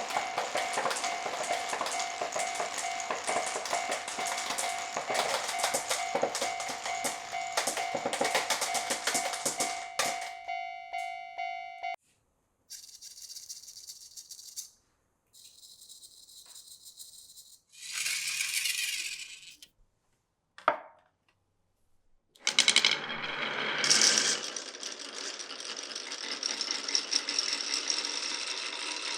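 Glass marbles rolling and clattering along a wooden marble run in a dense stream of clicks, with a steady two-note ringing tone over it that stops about twelve seconds in. Short bursts of rolling follow, each cut off abruptly. From about twenty-two seconds the dense clattering returns.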